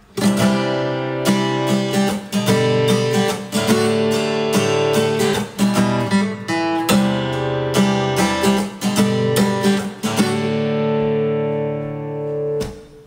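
Steel-string acoustic guitar strummed through a chord progression as a song intro, with no voice. Near the end a chord is left ringing and fading, followed by a brief stop.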